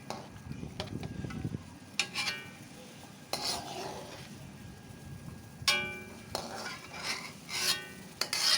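A metal utensil clinking and scraping against a pot and dish as scalded broccoli is lifted out of the water. There are several ringing metal clinks, a second or more apart.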